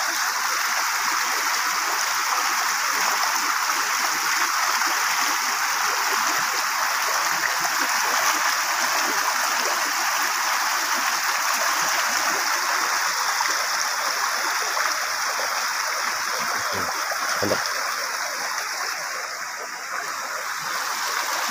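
Rushing of a fast, muddy stream swollen after heavy rain, a steady wash of water noise that dips briefly near the end.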